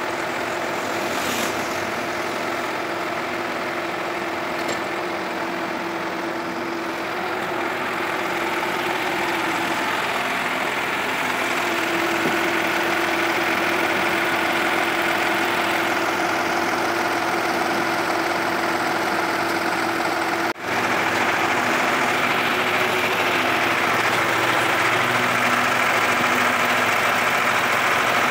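Flatbed tow truck's engine running steadily while a car is winched up onto its bed.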